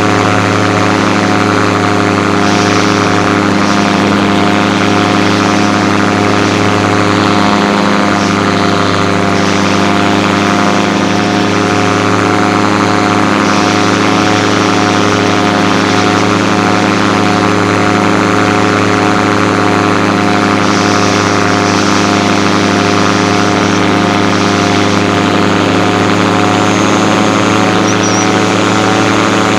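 Gyrocopter engine and propeller running steadily in flight, a loud, even drone with the rush of air, picked up by a camera under the pilot's ear muffs.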